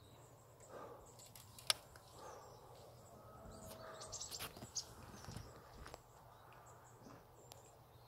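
Faint outdoor ambience with scattered light clicks and knocks, one sharper click about two seconds in, and a few short high bird chirps near the middle.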